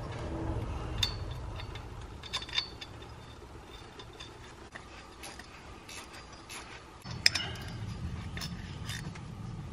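Light metallic clicks and clinks of hand work on a truck's front driveshaft and U-joint, parts and a small wrench being handled, with the sharpest click about seven seconds in. A low hum runs underneath, growing louder near the end.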